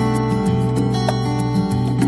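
Background music with acoustic guitar and a steady bass line.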